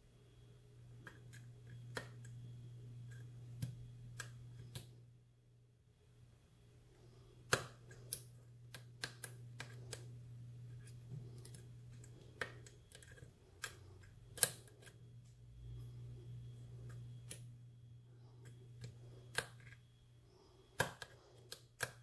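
Lock pick working the pins inside a brass padlock under tension: small, irregular metallic clicks and taps as the pick lifts and drops the pins. A low steady hum runs underneath.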